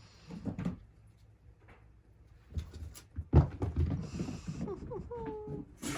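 Scattered soft thumps, knocks and scuffling as a mother cat plays with her kittens, with a brief pitched sound near the end.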